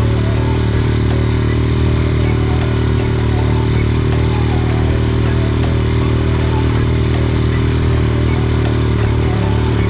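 ATV engine running at a steady speed while riding along a dirt track, with a rapid, even ticking over it.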